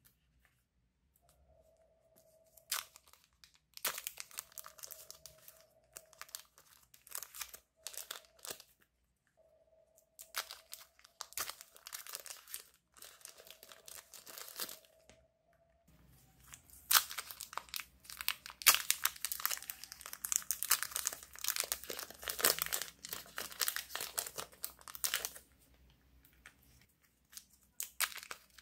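Thin clear plastic wrappers on packs of soft modelling clay crinkling and tearing as fingers peel them open and push the clay out. The crackling comes in short irregular bursts at first, then turns denser and louder for several seconds just past the halfway point before easing off.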